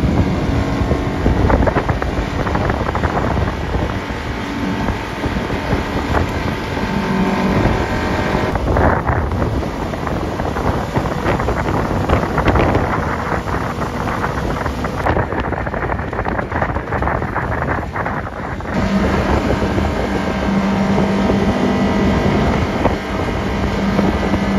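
Outboard motor running at speed, towing a tube, with wind buffeting the microphone and the rush of water from the wake. A steady engine hum is clear at first, sinks under the wind noise mid-way and comes back strongly about 19 seconds in.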